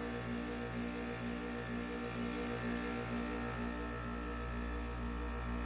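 Air conditioner humming with an even pulsing beat about twice a second. The unit has started by itself with its control board blank, and the sound is not its blower fan.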